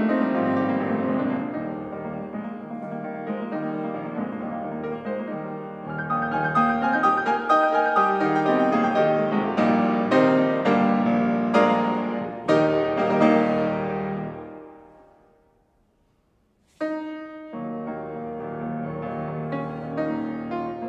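Fazioli grand piano played solo: a classical passage with several loud accented chords, which dies away to silence about fifteen seconds in. A loud chord about a second and a half later starts the playing again.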